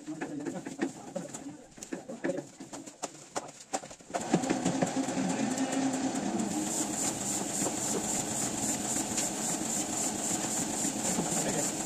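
Printing press machinery starting up about four seconds in and then running steadily with a rhythmic mechanical clatter. Before it, lighter clicks of paper being handled.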